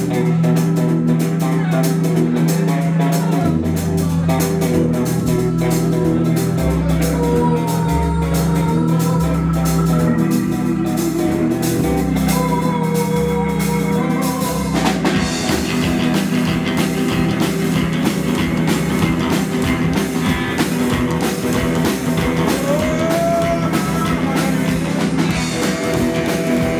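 Live rockabilly band playing: upright double bass, electric guitars and drum kit. A low bass line comes in a few seconds in, and the band fills out with more drums and cymbals about halfway through.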